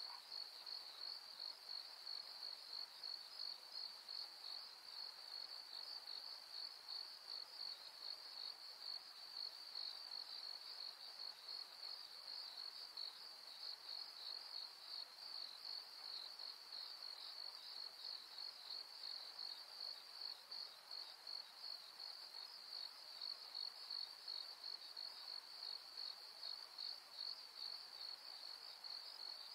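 A faint, steady, high-pitched insect chorus trilling without a break.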